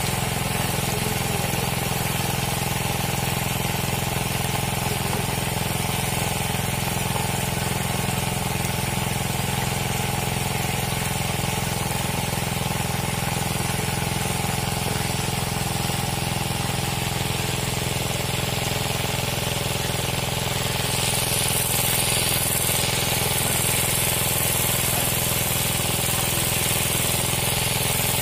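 A motor runs steadily with an even low hum; about three quarters of the way through a high hiss joins it.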